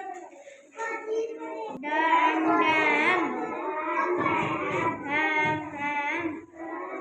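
Young children's voices chanting phonics words in a sing-song way, as a class recites together.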